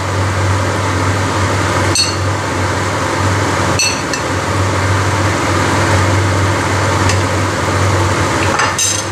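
Broth boiling hard in a large wok over a steady low hum. Sharp metallic clinks sound three times: about two seconds in, about four seconds in, and near the end.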